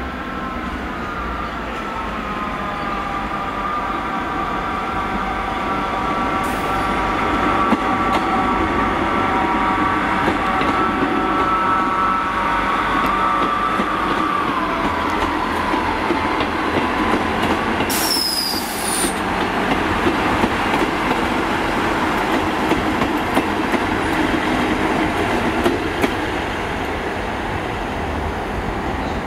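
A GWR Class 158 diesel multiple unit running in along the platform over curved track. Its wheels squeal in several steady high tones that slide down and die away about halfway through, over the rumble of the train and clicks from the rail joints. About two-thirds of the way through comes a brief hiss with a falling whistle.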